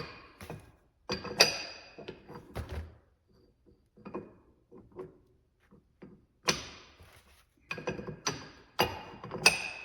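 Steel axle parts and hand tools knocking and clinking at an irregular pace, each strike leaving a short metallic ring, as a Dana 70 differential's bearing adjustment is set. The strikes bunch up near the end.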